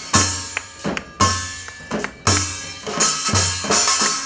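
Drum kit playing a steady beat: a heavy bass-drum and cymbal hit about once a second, with lighter drum strokes in between.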